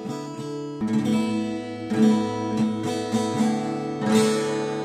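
Acoustic guitar being played, notes and chords picked one after another and left to ring.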